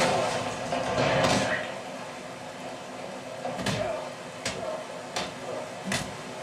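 A film's fight-scene sound effects played through a home-theater center channel speaker: a swell of sound in the first second or so, then four sharp blows about 0.7 s apart.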